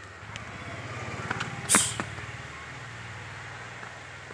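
A steady low machine hum with one sharp knock a little under two seconds in.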